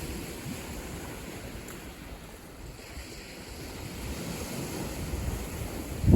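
Waves washing onto a shore, a steady hiss, with wind buffeting the microphone as a low, uneven rumble that grows stronger near the end.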